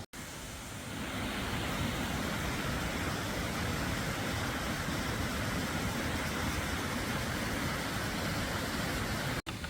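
Steady rushing of water from a creek waterfall, a little louder from about a second in.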